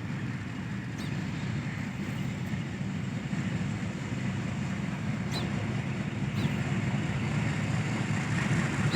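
Express train slowly pulling out of the station: a steady low rumble that grows gradually louder, with a few faint, brief high squeaks.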